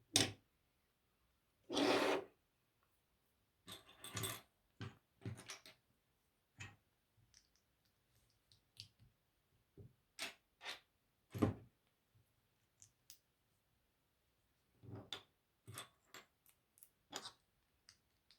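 Plastic Lego pieces being handled: irregular clicks and small rattles as parts are picked up and pressed together, with a louder, longer rattle of pieces about two seconds in.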